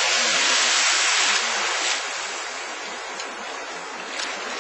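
Sea surf washing up a beach: a wave rushes in loudly for about the first two seconds, then eases to a steadier, quieter wash.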